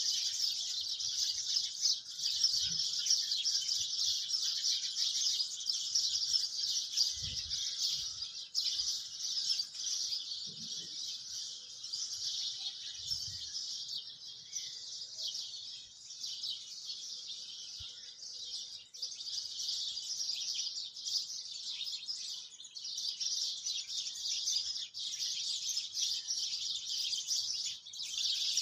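Steady, dense chirping of many birds, with a few faint low thumps.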